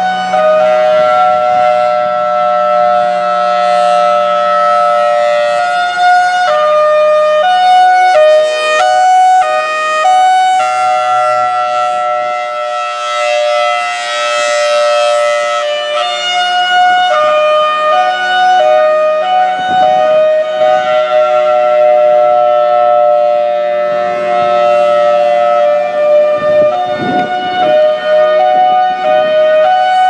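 Federal Signal Thunderbolt 1003 outdoor warning siren sounding loudly as a steady two-tone chord. About six seconds in it alternates between higher and lower pitches for several seconds (hi-lo), then settles back into the steady chord.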